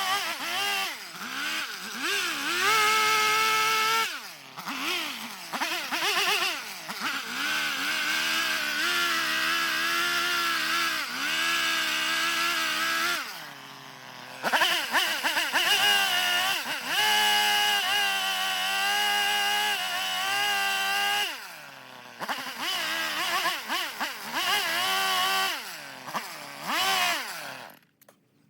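Chainsaw running and carving into eastern red cedar, its pitch rising and falling as it is revved and eased off. It drops back briefly about four, fourteen and twenty-two seconds in, and cuts off just before the end.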